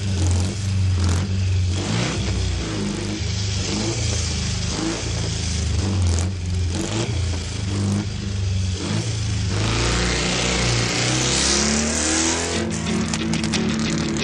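Motor vehicle engine running and revving, its low drone shifting in pitch, growing rougher and noisier about ten seconds in.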